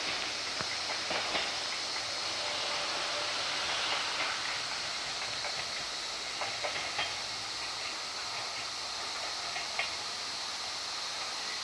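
Kumamoto Electric Railway 200 series train running along the track: a steady hiss of rolling noise with scattered light clicks.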